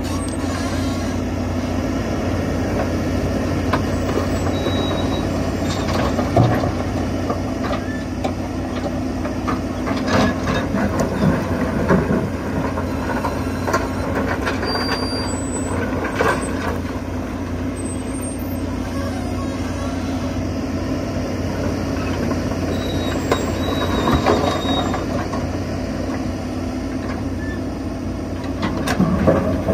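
Volvo EC210 excavator's diesel engine running steadily under working load as it digs and swings rock. Scattered knocks and scrapes of rock against the steel bucket come through at irregular intervals.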